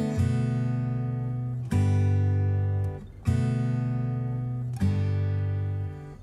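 Background music: acoustic guitar chords strummed and left to ring, with a new chord about every one and a half seconds.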